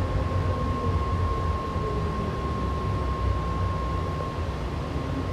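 Inside a BART Fleet of the Future train car slowing into a station: a low rumble with an electric motor whine that falls in pitch in the first couple of seconds, over a steady high-pitched hum.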